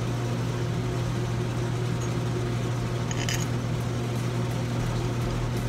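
A steady, low machine hum with no change in pitch or level, and a brief light clink about three seconds in.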